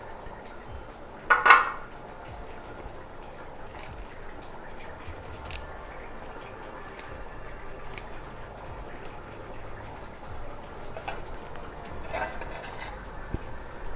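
Soft clinks and taps of a plastic container and hands against an aluminium pot as coconut-spice paste is shaken onto boiled tapioca, with one brief louder sound about a second and a half in.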